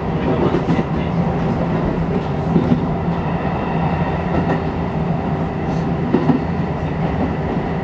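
Shin-Keisei electric train running along the track, heard from inside the front car: a steady rumble with a continuous motor hum. A few clicks from the wheels over the rails come through, loudest about two and a half and six seconds in.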